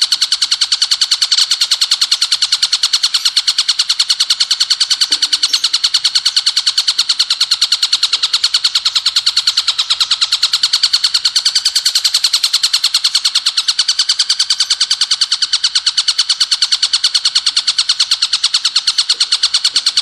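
Bar-winged prinia (ciblek gunung) song in the rapid-fire 'bren' style: an unbroken, fast, even trill of sharp high-pitched notes, used as a masteran recording to teach songbirds.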